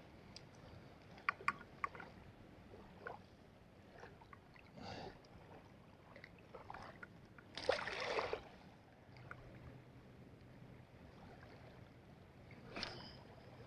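Faint handling sounds of a spinning rod and reel and a small mackerel being unhooked at the water's edge: a few sharp clicks early on, then a brief louder scuffle about eight seconds in and a short noise near the end.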